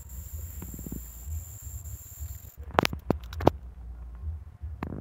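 Insects chirring in a steady high-pitched drone over a low rumble of wind on the microphone; the insect sound cuts off abruptly about halfway through. A quick run of sharp clicks and knocks, the loudest sounds here, comes about three seconds in, with one more near the end.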